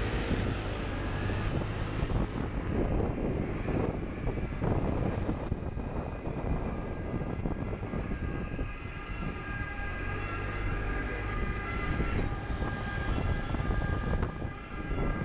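Motor scooter riding in city traffic: wind rushing over the microphone on top of the scooter's engine. A high, steady whine comes in about halfway through.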